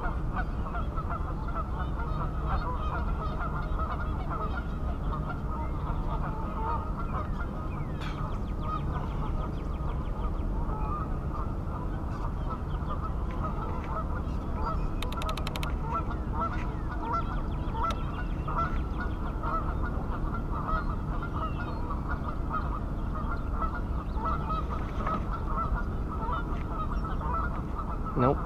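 A flock of geese honking continuously, many calls overlapping at an even level, over a low steady rumble.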